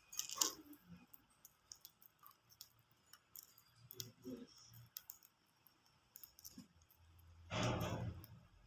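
Pet budgies making faint, scattered small clicks and ticks, with a brief high chirp at the start. About seven and a half seconds in, a louder rustling sound lasts about a second.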